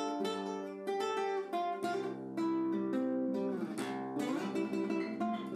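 Classical guitar played solo: a run of plucked notes and chords, each ringing out with its overtones, recorded dry with one microphone and no EQ.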